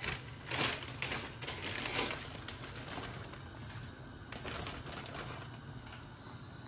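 Raw collard green leaves rustling and crunching as handfuls are dropped into a stockpot and pressed down by hand. It comes as several sharp crunches in the first couple of seconds, then softer rustling over a steady low hum.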